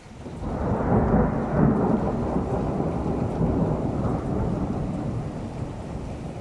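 A long rolling peal of thunder: it breaks in about half a second in, is loudest for the next second or so, then rumbles on, slowly fading.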